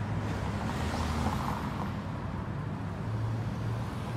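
Car traffic on a city street, a steady low engine hum.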